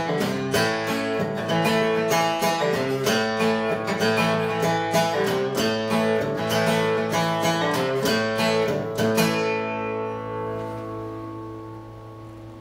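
Solo acoustic guitar played without singing: a steady run of picked and strummed notes, then from about nine seconds in a last chord left to ring and fade out as the song ends.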